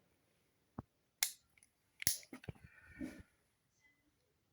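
Switchblade knife being worked by hand: several sharp metallic clicks and snaps at irregular intervals, the loudest about two seconds in, followed by a quick cluster of smaller clicks.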